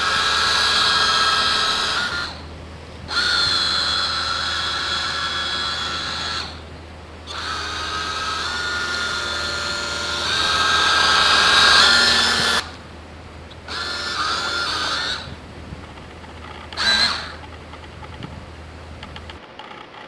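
The twin small electric drive motors of a 6-volt RC model boat whining as they run. They cut out several times for under a second and step up and down in pitch as the throttle is worked.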